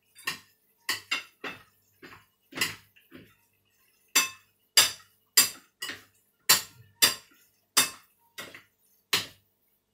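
Chopsticks clinking against a ceramic bowl as noodles are tossed with sauce: a string of sharp, irregular clinks, about two a second, louder in the second half.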